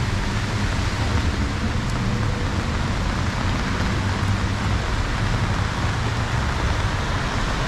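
Steady heavy rain falling on a city street, with a low rumble of road traffic underneath.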